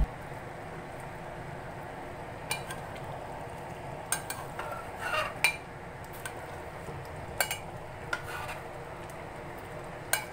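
Metal ladle stirring a thick beef and daikon stew in a clay pot, clinking and scraping against the pot's sides several times at uneven intervals over a steady low hiss.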